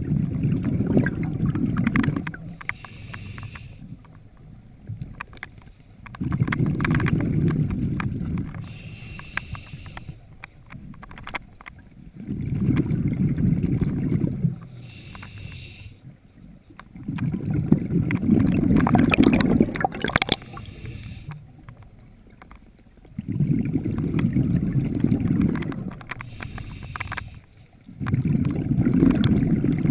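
A scuba diver breathing underwater in a slow, steady rhythm. Every six seconds or so comes a low rushing burble of exhaled bubbles that lasts two to three seconds, and some of the gaps between them hold a short, fainter hiss.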